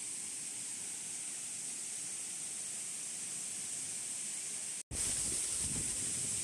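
Rushing water of a waterfall, a steady hiss. It cuts out for an instant near the end and comes back slightly louder.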